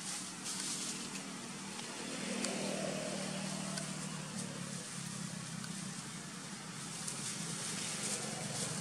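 Steady low hum of a running motor, like an idling engine, with faint high rustle over it.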